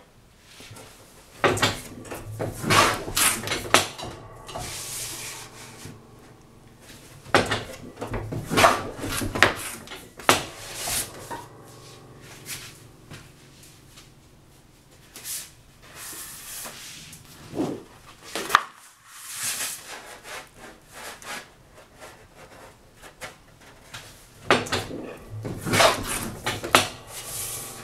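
Sheets of heavy black Stonehenge paper sliding and rubbing over the wooden bed of a board shear while they are cut into folios. About four bouts of knocks and clatter come as the sheets are butted against the gauge, the blade is worked and the cut pieces are handled.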